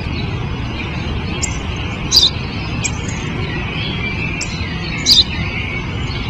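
Sparrow chirping: two loud, short chirps about three seconds apart, with fainter chirps between them, over a steady low background rumble.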